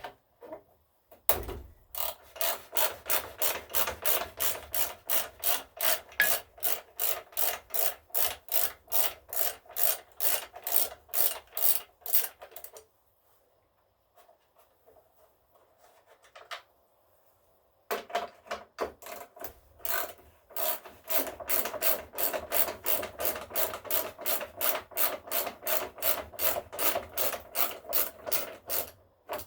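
Hand ratchet wrench being swung back and forth to back out bolts on an engine, about three strokes a second, in two long runs with a pause of several seconds in between.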